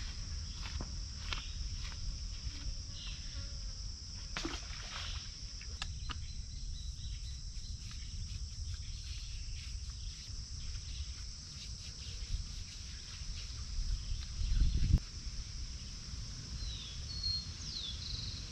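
Steady chorus of insects, a continuous high drone, over a low rumble. A few clicks early on, a louder thump about fifteen seconds in, and a few short chirps near the end.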